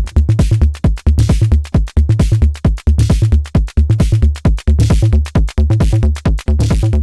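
Arturia DrumBrute Impact analog drum machine playing a steady pattern: a deep kick about two times a second, with short noisy percussion hits above it, run through an external reverb and delay.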